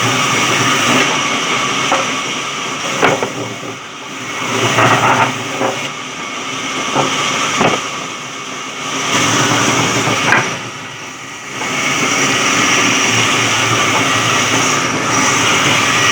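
Electric sawmill running and cutting wood: a steady, loud mechanical noise with a hiss, which eases off twice for a moment, and a few sharp knocks.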